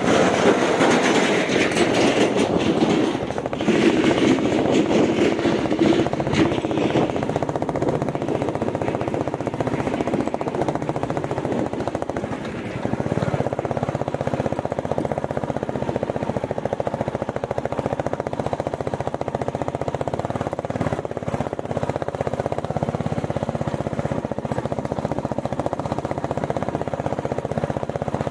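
Royal Enfield Bullet 350's single-cylinder engine running under way as the motorcycle rides a rough dirt track, with a fast, even pulsing; louder for the first several seconds, then steadier.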